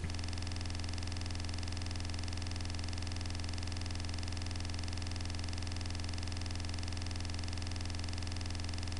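A steady, unchanging low electrical hum with a buzzy stack of overtones, the kind of mains hum or ground-loop buzz picked up by a computer recording setup.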